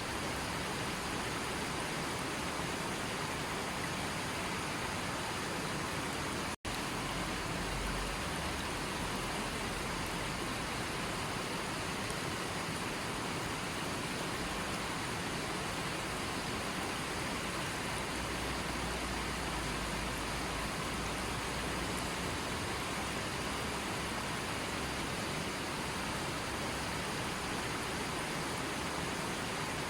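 A stream flowing: a steady rush of water, broken by a split-second dropout about six and a half seconds in.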